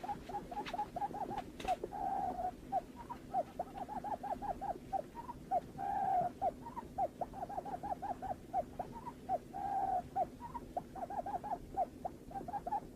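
Barred buttonquail calls played as a lure recording: quick runs of short low notes, about seven a second, broken about every four seconds by a longer drawn note, over a faint steady hum.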